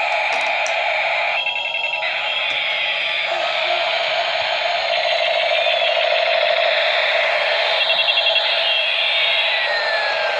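A battery-operated toy helicopter's electronic sound effects: overlapping siren-like tones that rise and fall over a steady whir, with two short bursts of rapid beeping, about 1.5 s in and again near 8 s.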